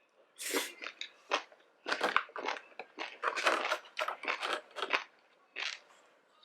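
Close-miked chewing of crunchy seaweed salad: a quick run of wet crunching bites that stops about a second before the end.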